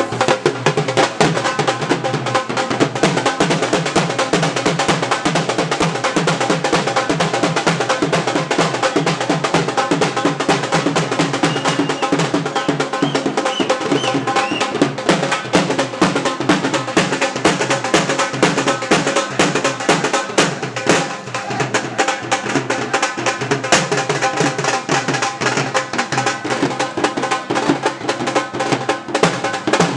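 Music driven by fast, dense drumming over a steady tonal background.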